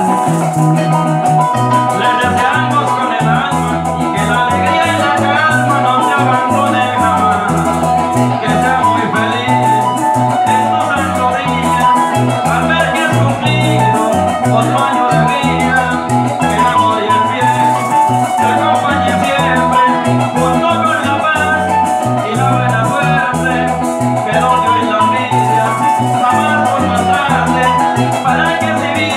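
Live música llanera played on harp, a strummed small guitar such as a cuatro, and shaken maracas, in a steady dance rhythm with no singing.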